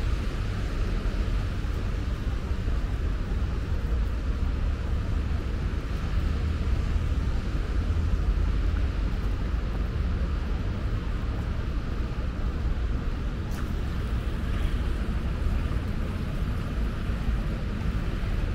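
Steady rainy-night city ambience: a low, even rumble of traffic under a continuous hiss of rain on wet pavement.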